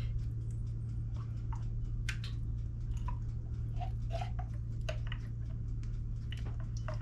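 A spoon scooping thick blackberry pie filling out of a glass jar and dropping it into small pie shells, making scattered light clicks, scrapes and wet squelches. A steady low hum runs underneath.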